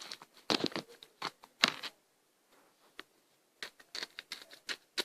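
Crunchy slime with beads mixed in being squeezed and worked by hand, giving irregular sharp crackling clicks, with a pause of a second or so in the middle.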